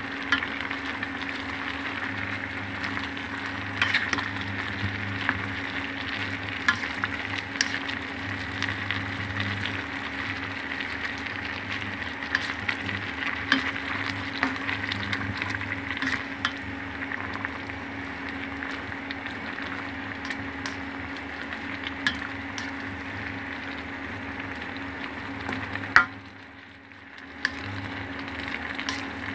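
Food sizzling in a hot pan while being stir-fried, with frequent sharp clicks and scrapes of a utensil against the pan over a steady low hum. Near the end a sharp knock is followed by a brief drop in the sizzling before it resumes.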